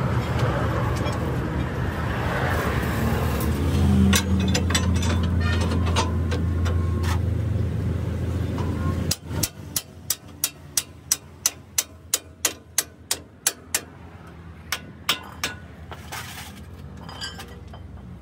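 A steady low engine rumble that cuts off suddenly about nine seconds in. It is followed by a run of sharp metallic clicks, about three a second, for several seconds, from hand tools working a bolt on a heavy truck's front axle.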